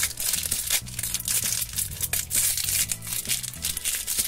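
Plastic foil blind-bag wrapper crinkling and crackling in the fingers as it is squeezed and worked open.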